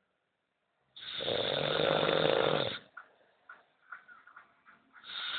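A man snoring: one long snore starting about a second in and lasting nearly two seconds, then a few faint clicks, and the next snore beginning near the end.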